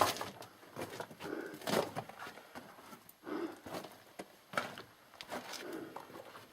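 Irregular footsteps and scuffs on the loose rock and dirt floor of a mine tunnel, with scattered small knocks.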